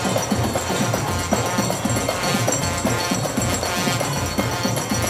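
Live Moroccan traditional festive music: square frame drums and a big drum beating a quick, steady rhythm under trumpets.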